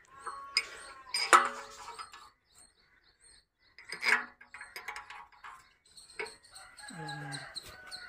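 Steel bolts and a puller plate clinking as they are fitted by hand onto a baler roller's pulley: a few sharp metallic clicks, the loudest about a second in. A chicken calls in the background near the end.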